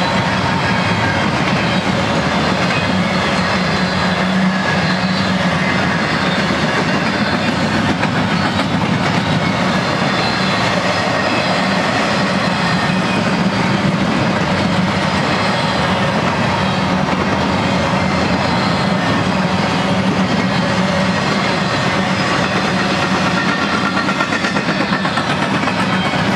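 Empty double-stack well cars of a freight train rolling past at steady speed: the continuous running noise of steel wheels on rail.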